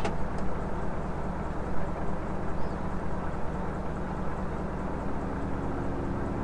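Fishing boat's engine idling steadily.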